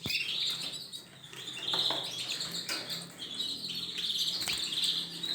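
Canaries chirping, a steady run of high chirps and short song phrases, with a few light clicks among them.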